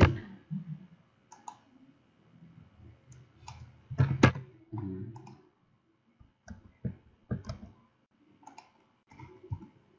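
Computer mouse clicking: about a dozen separate, scattered clicks, the sharpest one about four seconds in.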